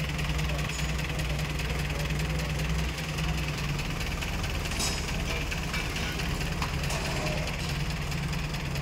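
Mobile crane's diesel engine running steadily with a constant low hum while it holds a heavy load on its boom.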